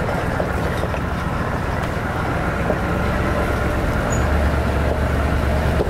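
A four-wheel drive's engine running steadily, a low drone that grows louder about four seconds in.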